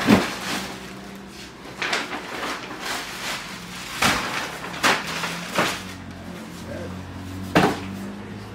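Cardboard packages being set down and handled, a string of about six sharp knocks and thumps spread over several seconds, the loudest right at the start.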